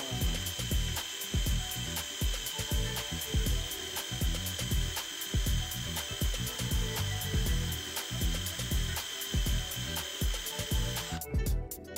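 Drill running with its bit boring into annealed leaf-spring steel: a steady high whine with grinding as the bit cuts, the steel drilling easily now that it has been annealed. The whine cuts off near the end. Background music plays along.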